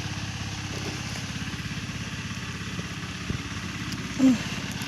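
A small engine running steadily with an even, rapid beat. A brief, loud pitched sound comes near the end.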